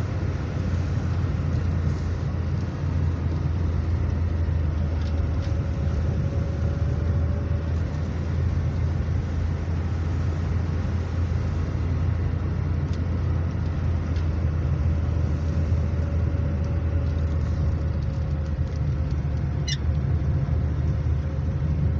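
Car driving steadily along a highway: a constant low rumble of engine and tyres on the road, with a faint steady whine over it.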